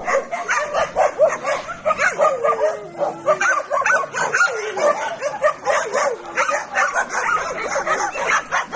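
Dogs barking and yipping rapidly over one another, with one long falling whine about two seconds in.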